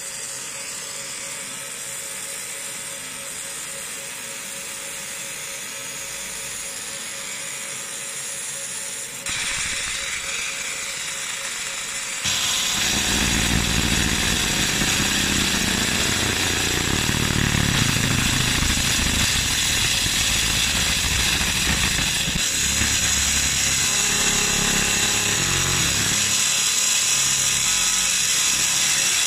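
60 W JPT MOPA fiber laser marker deep-engraving a metal block: the steady hissing buzz of the pulsed beam and scanner at work. It steps up in loudness about nine seconds in and again at about twelve seconds, where it turns fuller and heavier.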